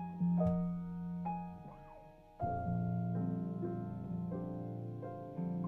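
Grand piano and jazz guitar playing a slow jazz ballad, striking full chords and letting them ring; a new chord comes in about two and a half seconds in.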